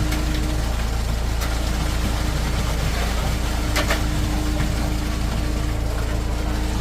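An engine running steadily at a low idle, with a couple of short sharp knocks, like tools striking, about one and a half and four seconds in.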